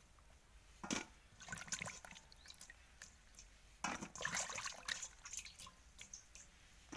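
Water splashing and dripping as a hand scoops washed flat bean pieces out of a stainless steel bowl of water, in two bouts, about a second in and again about four seconds in.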